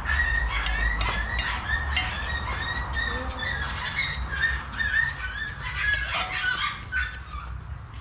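A string of short, high animal calls repeated many times, with sharp clicks scattered among them; they thin out near the end.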